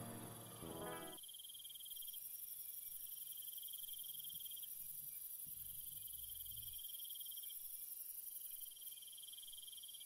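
Background music ends about a second in, leaving a faint, steady, rapidly pulsing high-pitched chirring of insects.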